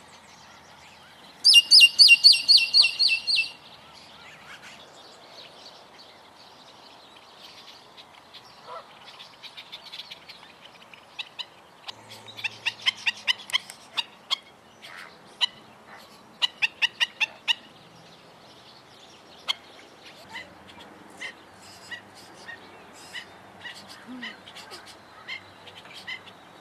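Black-necked stilts calling: a loud rapid run of about ten sharp, high repeated notes near the start, more quick runs of sharp notes around the middle, and scattered single notes toward the end.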